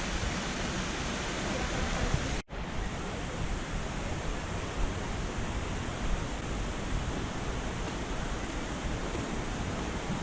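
Waterfalls on the Jacaré Pepira river, a steady rush of falling water. It cuts out for an instant about two and a half seconds in, then carries on the same.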